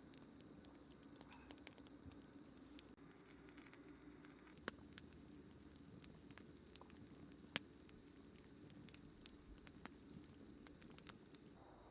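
Faint wood campfire crackling: scattered small snaps over a low background, with two louder pops about a third and two thirds of the way through.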